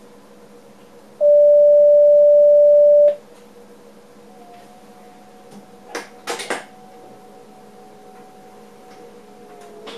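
Electronic warning tone in a train driver's cab: a single loud, pure steady tone held for about two seconds, starting about a second in, over the faint steady hum of the cab. A few sharp clicks follow about six seconds in.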